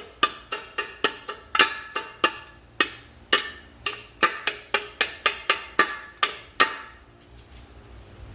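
Hammer striking a brass punch, about three sharp, ringing metal taps a second, driving a bearing race into an M5R1 manual transmission case at the input shaft end; the tapping stops about six and a half seconds in.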